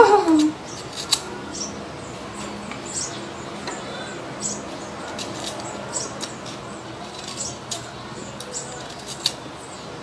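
A kitchen knife cutting green mango, with irregular crisp small clicks and snips as the blade goes through the firm fruit. A brief falling vocal sound opens it.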